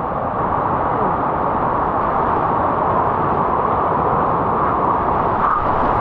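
Rushing water of a rainforest waterfall and fast creek over rocks, a steady, even rush.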